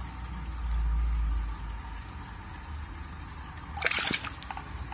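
Water splashing in a basin as a hand scoops up a goldfish: one short, loud splash about four seconds in, over a low steady hum.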